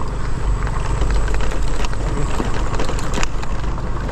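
Motorcycle engine running under way on a bumpy dirt forest trail, with a steady rushing noise and scattered sharp knocks and rattles from the bike as it goes over the bumps.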